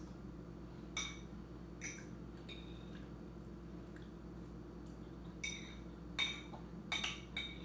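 A metal fork clinking against a ceramic dinner plate: about seven sharp, ringing clinks scattered through, over a steady low hum.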